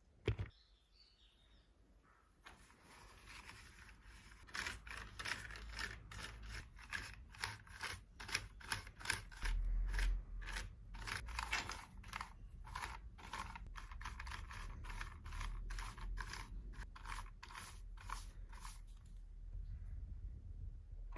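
A quick, irregular run of small plastic clicks and scrapes from keyboard keycaps being handled and worked on, starting a couple of seconds in and stopping shortly before the end, with low handling rumble underneath.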